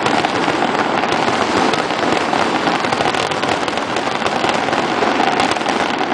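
Aerial fireworks display: shells bursting in quick succession, making a steady, dense crackling with no single standout boom.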